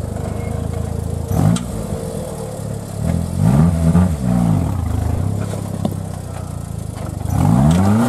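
Engine of a competition off-road 4x4 running under load, with short bursts of revving that rise and fall in pitch several times: once briefly, then a cluster a few seconds in, and again near the end.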